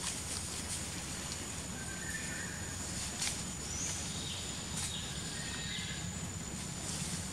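Forest ambience: a steady high-pitched insect drone under a low background rumble, with a few short high chirps and scattered faint clicks.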